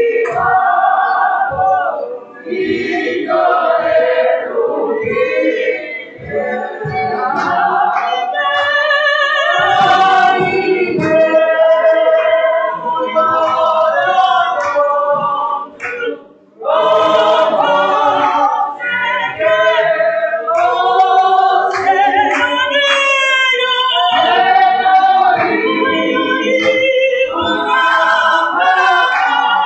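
Group of voices singing a hymn together without instruments, with a brief break in the singing about sixteen seconds in.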